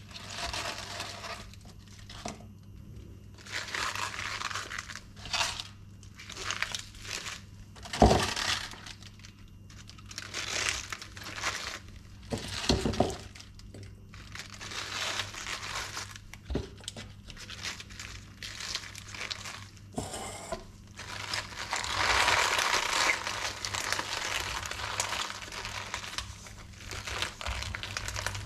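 Fresh spinach leaves rustling and crinkling in nitrile-gloved hands as they are gathered from a steel bowl and bunched on a bamboo cutting board, in irregular handfuls. A sharp knock about eight seconds in.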